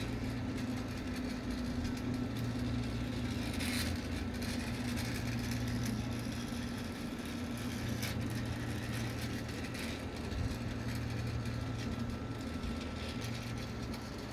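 Small electric motor of a battery-powered Thomas toy train running steadily as the train travels around its track, with a faint click about four seconds in and another about eight seconds in.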